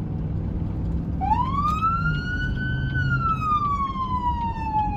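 Fire department vehicle's siren winding up into a wail about a second in, rising for nearly two seconds and then falling slowly, over a low vehicle rumble.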